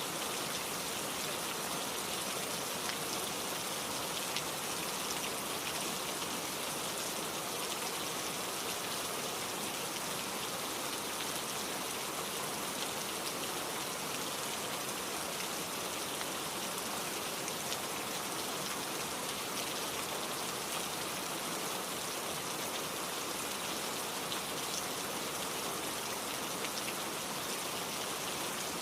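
Steady rain falling, an even hiss of many drops pattering on a surface, with no change in strength.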